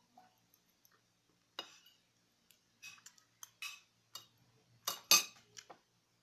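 Cutlery clinking and scraping against a plate during a meal: a string of short, sharp knocks, the loudest cluster about five seconds in.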